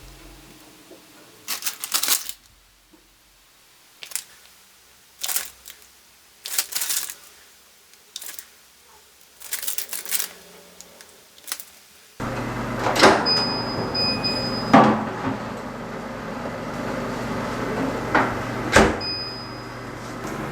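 Kitchen handling sounds: separate clicks and clatters of utensils or trays. About twelve seconds in, a steady appliance hum starts, joined by a few knocks and short electronic beeps, like an oven being set and run.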